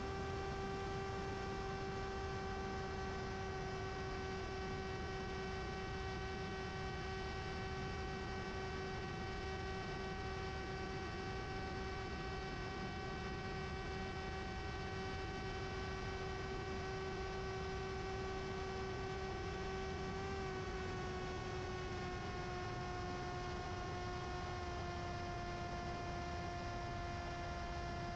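Mini Drak flying wing's brushless motor and pusher propeller running at steady cruise throttle, a constant pitched drone over low airflow rumble, dipping slightly in pitch about two-thirds of the way through as the throttle eases.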